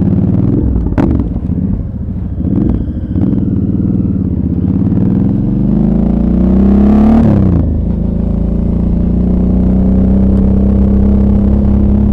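Suzuki V-Strom 650's V-twin engine under way: the revs climb steadily for about three seconds, drop sharply about seven seconds in, then hold steady at a lower pitch. A brief knock about a second in.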